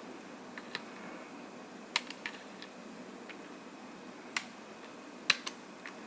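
Scattered small sharp clicks and taps, some in quick pairs, from the flip-up latches of a laptop's ribbon-cable connectors being opened and the cables handled.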